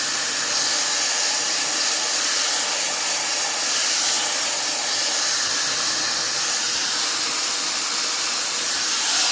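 Fentgo ionic hair dryer with its diffuser attachment running steadily on the cool setting: an even rush of blown air with a faint steady whine.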